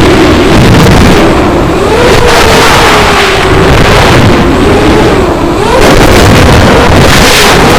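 FPV racing quadcopter's brushless motors and propellers whining under heavy wind rush, the pitch swinging up and down again and again as the throttle changes.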